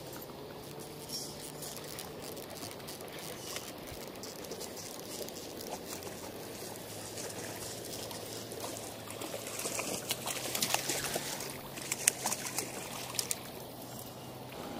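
Hooked rainbow trout splashing and thrashing at the water's surface. The splashes come thick and loud in the second half, as the fish is brought to the landing net.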